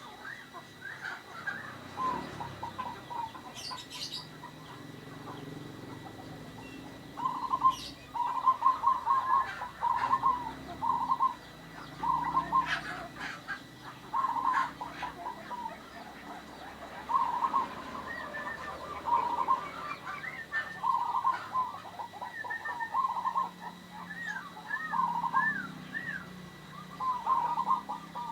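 Zebra dove (perkutut) cooing over and over in short rattling, stuttering phrases, a fresh phrase every second or two.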